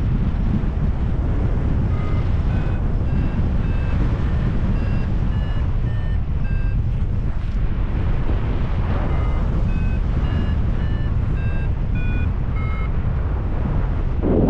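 Paragliding variometer sounding its climb tone: short beeps, about two to three a second, that shift up and down in pitch, starting about two seconds in and pausing briefly midway. Heavy wind rumble on the microphone is the loudest sound.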